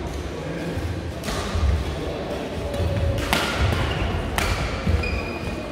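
Badminton rally: rackets hitting the shuttlecock, three sharp hits, with shoes thudding on the sports-hall floor between them.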